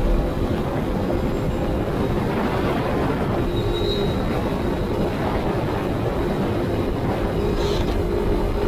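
CFMoto CForce 800 ATV's V-twin engine running steadily under way, mixed with heavy wind rumble on the microphone.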